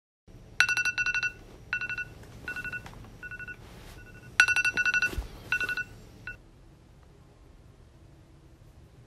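Phone message alert tones beeping in repeated quick bursts as a string of text messages comes in, stopping about six and a half seconds in.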